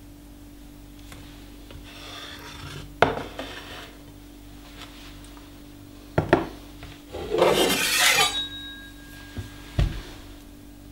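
Handling on a wooden cutting board and stone countertop: a sharp knock, two quick knocks a few seconds later, then a scraping rub that lasts about a second, and a dull thump near the end. A faint steady hum runs underneath.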